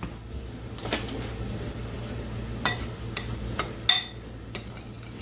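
Kitchen clatter: a handful of separate light clinks and knocks of spice containers, bowls and utensils, the loudest about four seconds in, over a steady low hum.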